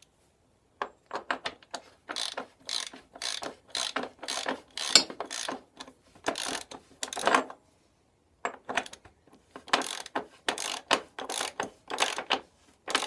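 Hand ratchet wrench clicking in repeated strokes as it runs down and snugs the Hayabusa's rear axle nut, in two runs with a short pause between.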